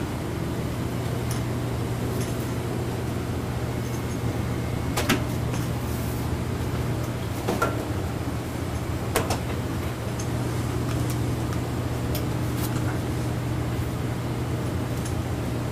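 Steady low hum of running shop equipment, with a few sharp metal clicks and taps from welding rod and steel parts being handled, the clearest about five, seven and a half and nine seconds in.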